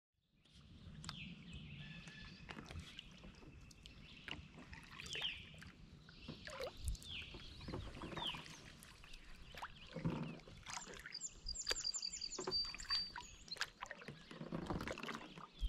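Kayak paddle strokes: the blade dipping and swishing through calm water every few seconds, with water dripping off it. Birds chirp through the strokes, and in the second half one gives a fast run of high, even notes.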